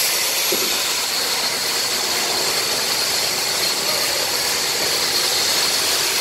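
Steady whooshing noise of a large evaporative air cooler's fan running.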